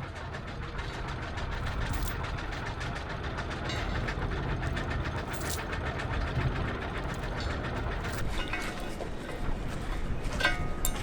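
An engine idling, with a steady, rapid knocking beat.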